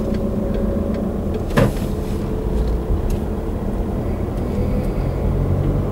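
Car engine and tyre noise heard from inside the cabin while driving slowly: a steady low rumble and hum, with one short click about a second and a half in.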